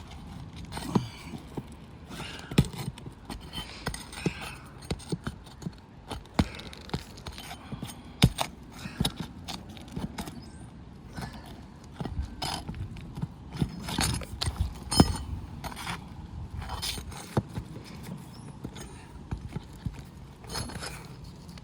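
Irregular sharp knocks, taps and scrapes of hand tools pulling nails and prying roof shingles loose, some strikes much louder than the rest.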